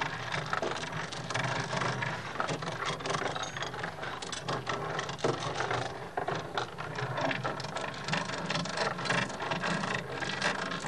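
Heavy steel chain rattling and clinking as it is handled and rigged around a wooden crate: a dense, irregular run of metallic clicks over a steady low hum.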